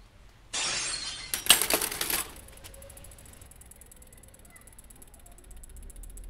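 A sudden crash about half a second in, then a second or so of clattering metal and clinking glass as a bicycle and a glass bottle hit the ground, dying away quickly.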